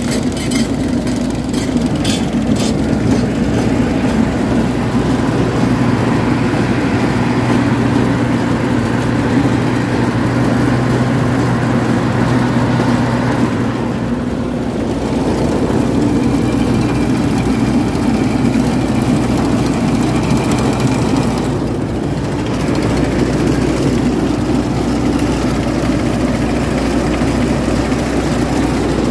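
Tractor engine running steadily, its tone shifting slightly about halfway through and again about three quarters of the way in.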